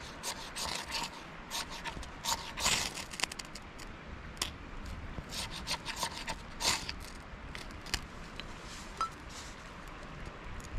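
Small wood campfire crackling, with irregular sharp snaps and short hissing pops as the kindling catches.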